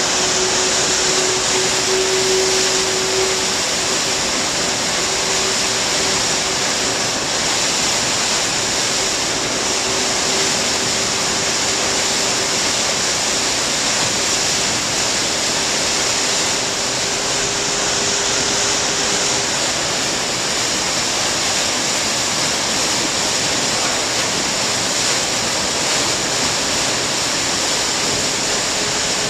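Propeller wash churning behind a large car ferry's stern: a steady, loud rush of turbulent water. A faint steady hum from the ship's machinery runs underneath, dropping away about two-thirds of the way through and coming back faintly near the end.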